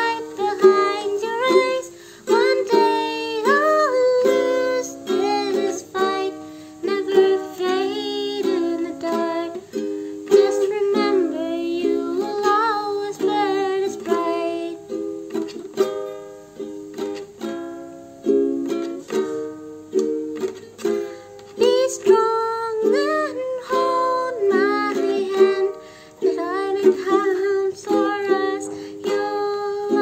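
Ukulele strummed in steady chords while a woman sings along.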